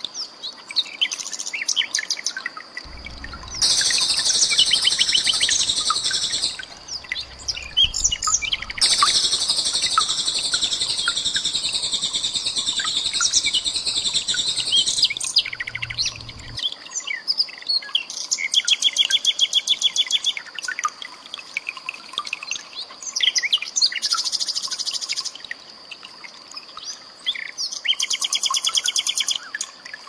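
Common nightingale singing: long, dense, high rattling trills alternate with short bursts of rapidly repeated notes. A steady high-pitched tone runs underneath.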